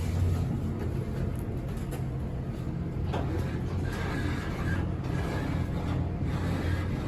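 Steady low hum with a constant haze of background noise, and a few faint brief sounds partway through.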